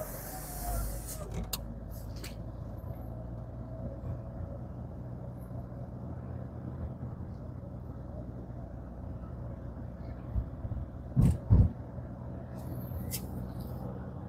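Steady engine and tyre rumble heard from inside a moving car's cabin. About eleven seconds in, two heavy thumps half a second apart stand out above it.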